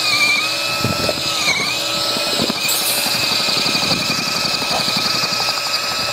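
HPT cordless mixer drill running with a paddle through a tub of wet mortar: a steady motor whine over the churning of the mix. The pitch sags briefly about a second and a half in as the paddle takes load. The mortar is now fully wetted and mixing easily.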